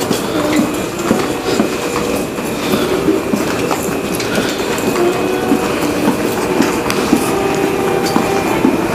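Two white canes tapping and sliding over a hard tile floor along with footsteps: a continuous, irregular clatter of clicks and scrapes with brief squeaks.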